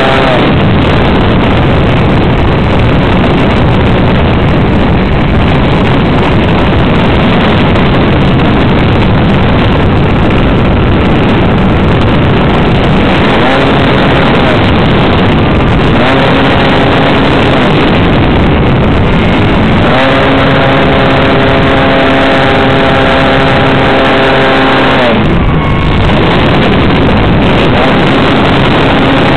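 Model aircraft engine and propeller heard from a camera on board the plane, under heavy wind rush. The engine note comes and goes and rises and falls in pitch as the throttle changes, dropping away about 25 seconds in.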